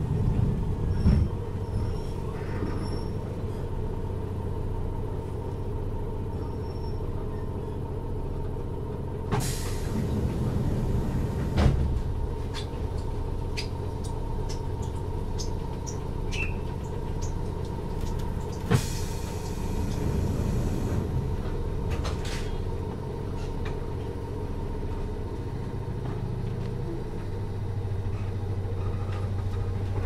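Inside a resistor-controlled Toyama Chihō Railway 10020-series electric train with ex-Eidan 3000-series running gear, making a station stop. The train slows to a halt; a hiss of air and a thud come about nine to twelve seconds in as the doors open, another hiss and a sharp knock near twenty seconds as they close. A low motor hum grows near the end as the train pulls away.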